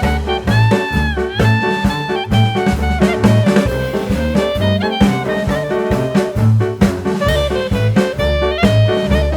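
Background music: an upbeat jazzy instrumental with brass-like lead lines over a steady bass and drum beat.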